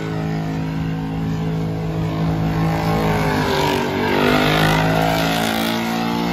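Car engine held at high revs during a tyre-smoking burnout. Its pitch dips and climbs again about halfway through.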